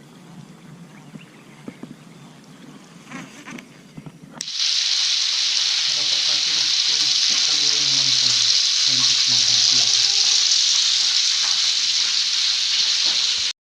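A loud, steady hiss like static starts abruptly about four seconds in, with a deep, low voice-like sound under it, and cuts off suddenly near the end. Before it there are only faint outdoor sounds with a few light clicks.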